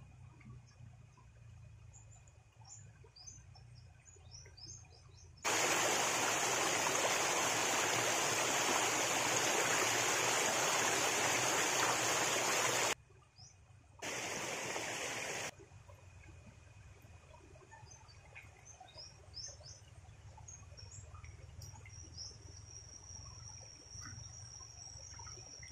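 Stream water rushing and splashing close up as a bundle of taro leaves and stalks is swished through it, in two stretches that start and stop abruptly: a long one of about seven seconds, then a short one. Around them, a quiet shallow stream with birds chirping.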